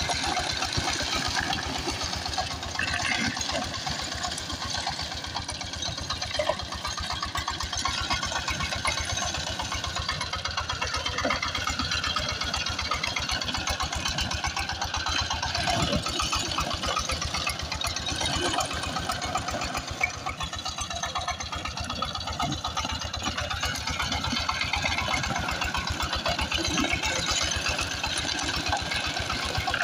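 Power tiller's diesel engine running steadily, with a rapid even knocking beat.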